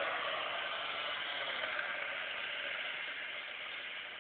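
Kawasaki KX65 two-stroke engine of a mini-chopper, heard far off and fading steadily as the bike rides away down the road.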